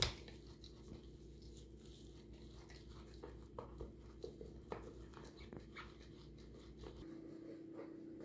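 Dog chewing on a toy ball: faint, irregular little clicks of teeth working the ball, with one sharp click at the very start.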